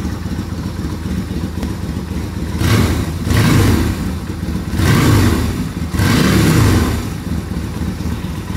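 2000 Yamaha Virago XV250's small air-cooled V-twin idling with its exhaust baffles removed, giving a mean little rumble. The throttle is blipped a few times from about three seconds in, each rev rising and falling, before it settles back to idle near the end.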